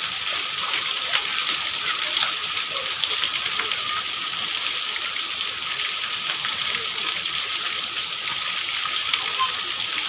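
Steady rain falling on a wet paved alley: a constant hiss of drops with many small spattering ticks.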